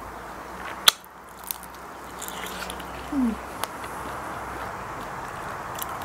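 A person biting into a piece of sun-dried, air-fried salmon belly and chewing it, with one loud sharp crunch about a second in and a few smaller crunches after.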